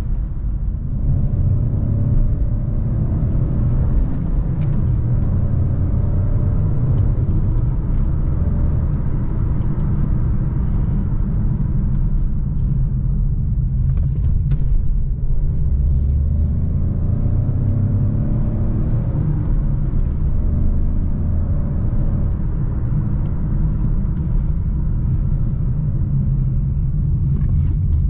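Jeep Avenger's 1.2-litre turbo three-cylinder petrol engine pulling the car along. Its note rises and then drops back several times, as on upshifts, over a heavy low road rumble.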